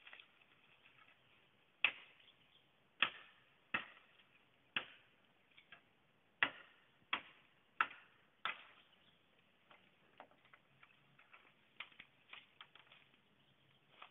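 A machete chopping wood or bamboo: about eight sharp, irregular strikes, each ringing briefly, followed by lighter cracks and clicks.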